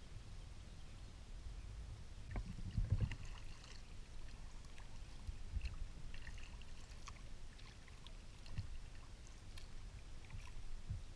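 Kayak moving slowly over calm water: faint water sounds against the hull, with a couple of soft knocks about two and a half to three seconds in.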